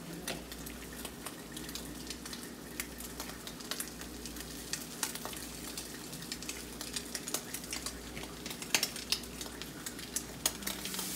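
An omelet sizzling in a nonstick frying pan on an electric stove burner: a steady crackle with many small scattered pops.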